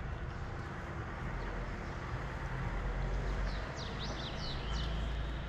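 Outdoor ambience: a steady low rumble and hiss, with a short flurry of high bird chirps about three and a half seconds in.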